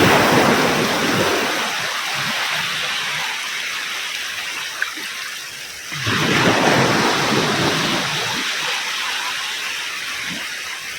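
Ocean waves breaking on a beach: one wave crashes at the start and a second about six seconds in, each washing out and fading slowly.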